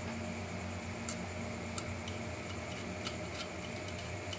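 Scattered small clicks and ticks of plastic RC-model parts and a small screwdriver being handled during assembly, over a steady low hum.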